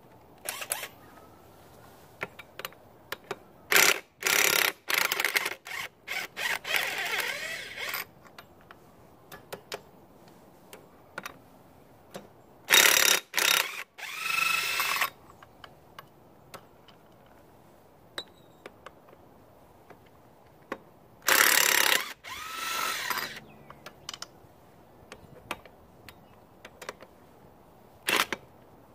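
Cordless impact wrench running in several short bursts, spinning up and down, as it takes the nuts off a mower's wheel hub.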